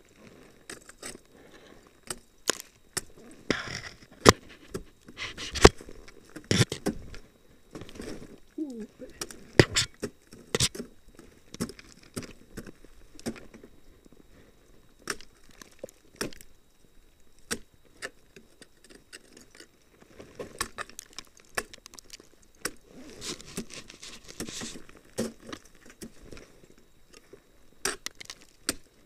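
Ice axes being swung into a frozen waterfall: sharp, irregular strikes and chops into hard ice, some hits much louder than others. Between the hits come smaller clicks, crackles of breaking ice, and the jangle of metal climbing gear.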